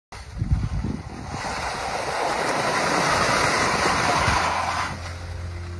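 Churning, splashing water and slush as the rotating screw pontoons of an amphibious screw-propelled robot drive through broken ice, with a few low knocks in the first second. The rushing fades near the end and a low steady hum comes in.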